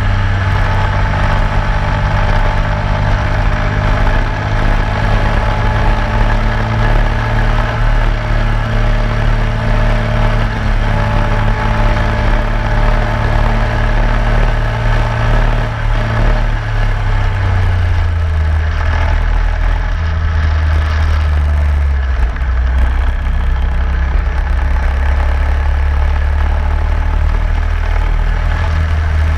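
Racing go-kart engine heard onboard at speed, a loud steady note that drops to a lower pitch about 17 seconds in and holds there.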